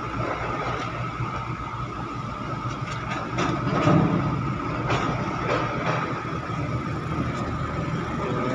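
Diesel engines of container-port machinery running, with a container truck driving toward the microphone and growing louder about four seconds in. A steady high whine sits over the rumble, and there are several sharp metallic knocks between about three and five seconds in.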